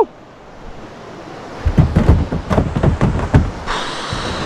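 Rushing river current hissing steadily, growing louder and brighter near the end. Through the middle comes a run of irregular thumps and knocks, up close.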